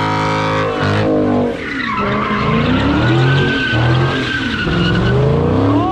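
Dodge Charger doing smoky donuts. The engine holds at high revs for about the first second, then revs up and down roughly once a second while the rear tyres squeal.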